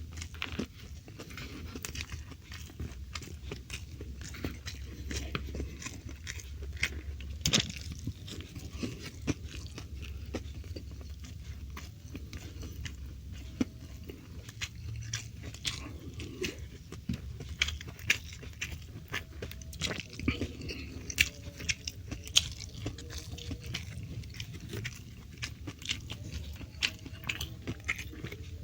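A person eating close to the microphone: steady chewing with frequent short crunches and mouth clicks, over a low steady hum.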